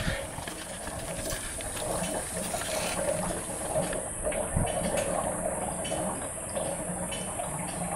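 Gasoline boiling in a hot car's fuel tank just after the engine is shut off: a steady hiss with bubbling, the start of vapor lock.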